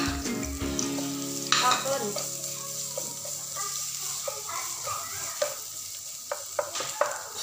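Pounded chili paste and chopped aromatics sizzling in hot oil in a nonstick frying pan, stirred with a spatula that scrapes and taps against the pan now and then.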